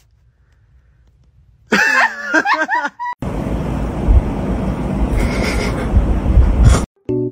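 A cat's wavering meow lasting about a second, then a loud rough rushing noise for about three and a half seconds that cuts off suddenly.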